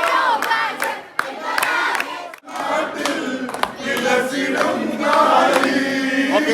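A crowd of people shouting and singing together, with sharp claps through it; the sound breaks off briefly about two and a half seconds in.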